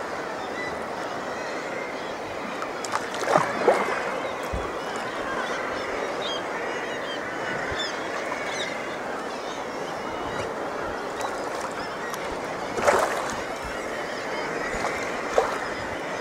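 Steady wash of sea water around a paddled sea kayak, with two brief louder sounds, about three seconds in and again near thirteen seconds.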